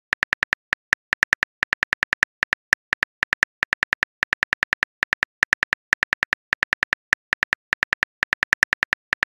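Simulated phone keyboard typing clicks from a texting-story app, one short tap per typed letter. They come quickly, several a second, in uneven runs.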